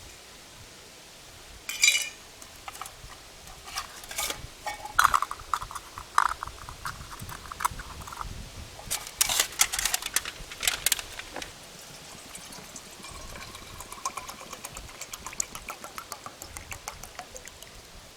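Clinks and knocks of a metal camp cook pot and stove gear being handled, with water being poured.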